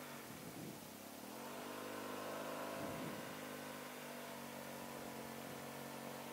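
Yamaha TMAX maxi-scooter's engine running under way. Its note sags in the first second, then rises about a second in as the scooter picks up speed and holds steady, over a soft hiss.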